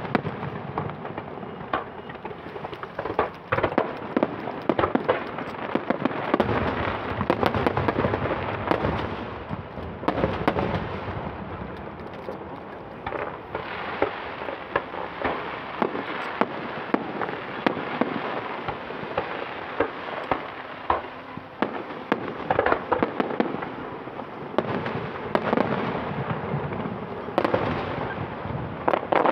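Fireworks display: a dense, continuous barrage of rapid bangs and pops from bursting shells, with louder clusters every few seconds.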